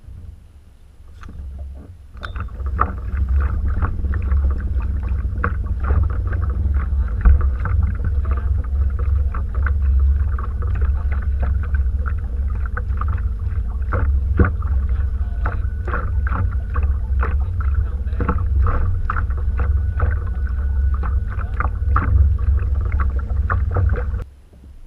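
Canoe under way on the water: a steady low rumble with a faint constant hum and many small knocks and splashes, starting about two seconds in and stopping abruptly near the end.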